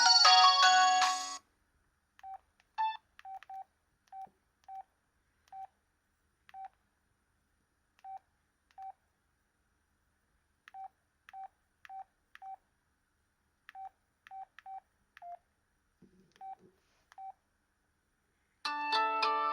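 Samsung SCH-A870 cell phone: a polyphonic ringtone cuts off about a second in, then about twenty short, same-pitched key beeps come at uneven intervals as the phone's buttons are pressed. The next ringtone starts near the end.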